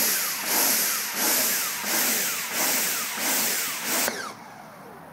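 Kärcher K5.7 electric pressure washer running with the gun open, its motor and pump pulsing in an even rhythm of about three surges every two seconds, each falling away in pitch. This is the sign that it never gets up to full pressure. The pulsing cuts off abruptly about four seconds in.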